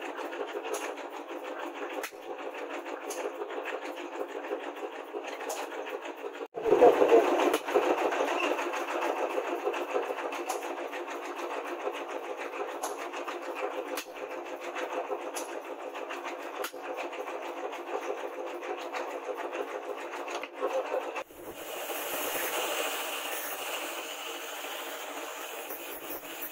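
Hammer working hot rebar prongs on a steel anvil with a rapid clattering. About 21 seconds in it gives way to an angle grinder cutting the steel with a steady hissing whir.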